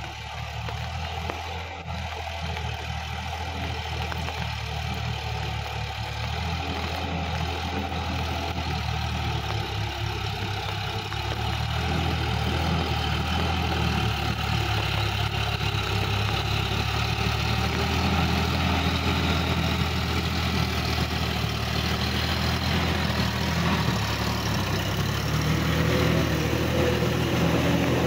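Sonalika DI-50 RX tractor's diesel engine running steadily under load while its rotary tiller churns a flooded paddy field, growing louder as the tractor comes closer.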